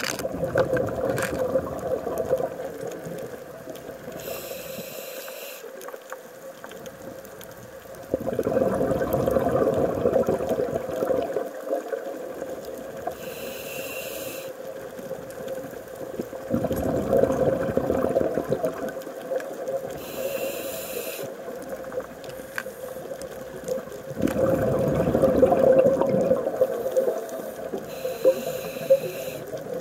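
Scuba diver breathing through a regulator. A short hiss of inhalation is followed a few seconds later by a louder rush of exhaled bubbles, in a cycle that repeats about every eight seconds.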